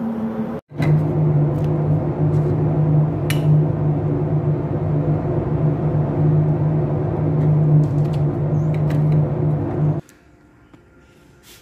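Spray-booth machinery running: a loud, steady mechanical hum with a low drone, starting just under a second in after a brief gap. It cuts off abruptly about ten seconds in, leaving a faint hum with a few light clicks.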